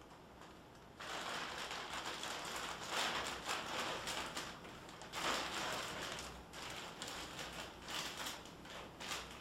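Plastic crinkling and rustling in uneven swells, starting about a second in, as nebulizer medication and saline are handled and readied for the neb cup.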